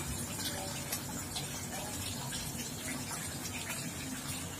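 Water in a tilapia pond: a steady wash of splashing and trickling, with a few faint sharper splashes as the fish feed at the surface.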